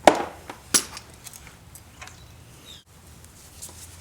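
Hand grease gun on a rear spring shackle grease fitting: two sharp metallic clicks about 0.7 s apart as it is pumped twice, then a few faint ticks.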